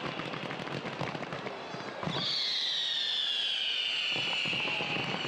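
Fireworks display: dense crackling and popping from bursting shells and fountains. About two seconds in, a long high whistle starts and slides slowly down in pitch for about three seconds.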